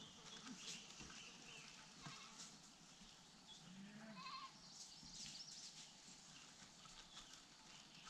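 Near silence: faint outdoor ambience with scattered distant bird chirps and one short, low animal call about four seconds in.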